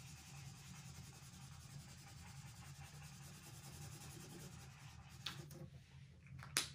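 Felt-tip marker scrubbing back and forth on paper, colouring in a drawn oval: a faint, steady scratchy rubbing that stops about five seconds in. A few sharp clicks follow, the loudest near the end, as the marker is capped.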